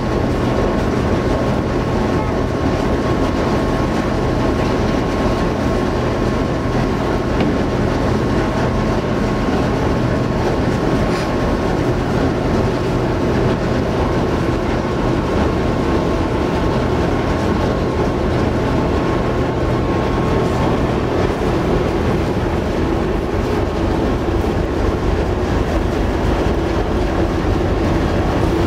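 Steady rumble of the icebreaker Aurora's engines running underway, with a low hum and a thin high tone that fade out about two-thirds of the way through.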